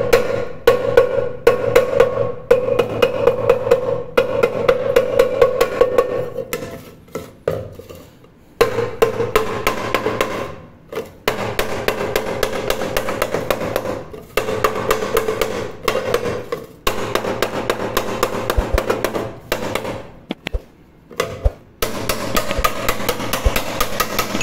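Quick, loud blows of a hammer driving a pointed wooden block against a dented pressure cooker, several a second in runs with short pauses, and the pot rings under each blow. The blows are beating out dents left by a fall.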